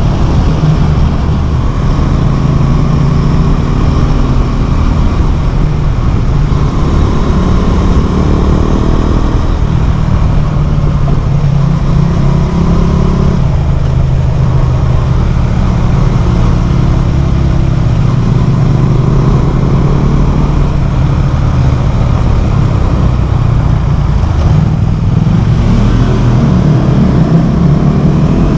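Motorcycle engine running loud through a LeoVince LV One Evo carbon exhaust with the dB killer removed, its pitch rising and falling several times as the engine is revved up and let back down.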